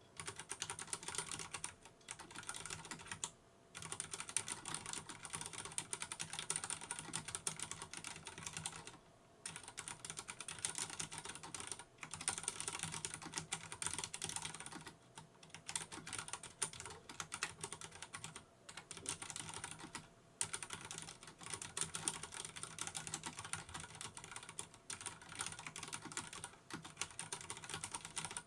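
Continuous fast typing on a Vortex Race 3 RGB mechanical keyboard with Cherry brown (tactile) switches, with dense key clacks broken by brief pauses every few seconds.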